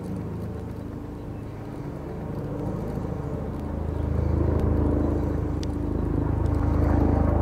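Steady low engine drone from a motor vehicle or engine somewhere off-picture, growing louder about four seconds in.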